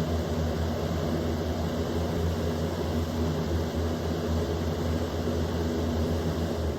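Easy Home box fan running on high speed: a steady electric motor hum under an even rush of moving air.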